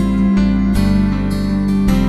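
Background music led by plucked acoustic guitar, a soft, gentle tune.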